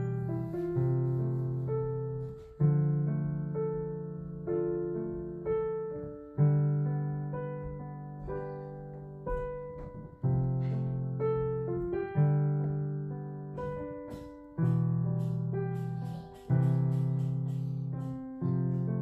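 Background piano music: a slow piece of notes and chords struck every second or two and left to ring out and fade.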